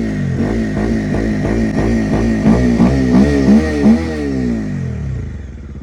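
Bajaj Dominar's single-cylinder engine being revved in quick repeated throttle blips, about three a second, then settling back near the end. It is fitted with a new aftermarket air filter meant to make it louder.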